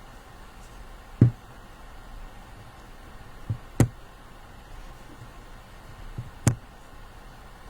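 A few short, dull knocks: three louder ones about a second, four seconds and six and a half seconds in, each just after a lighter one.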